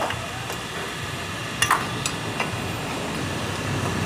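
A few sharp metallic clicks and knocks of a hand wrench working on a motorcycle's exposed clutch assembly, the loudest about one and a half seconds in, over steady workshop background noise.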